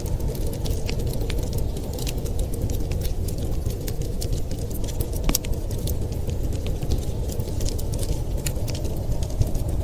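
Wood fire crackling in a fireplace: many sharp, irregular pops and snaps, one louder snap about five seconds in, over a steady low rumble.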